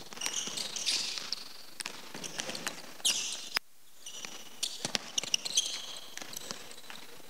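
A basketball bouncing on a hardwood gym floor as players dribble one-on-one, with sneakers squeaking sharply on the boards between the bounces.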